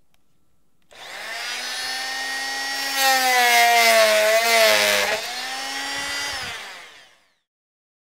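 Rockwell Sonicrafter oscillating multi-tool switched on and running steadily. For about two seconds it is louder while its blade plunge-cuts into a wooden board, and the pitch sags under the load. It then runs free briefly and winds down.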